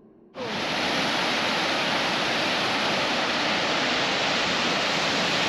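Steady rushing of the Sioux Falls waterfall on the Big Sioux River, starting abruptly about half a second in.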